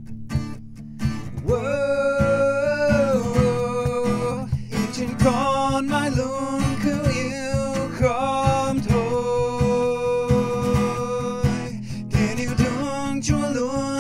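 A man singing a worship song in Vietnamese to acoustic guitar strumming. The guitar plays alone at first; the voice comes in about a second and a half in with long held notes.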